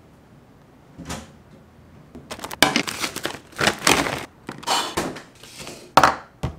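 Paper takeout bag crinkling and rustling as chicken wings are shaken out of it onto a plate, for about three seconds, then a small bowl set down on the table with a sharp knock near the end.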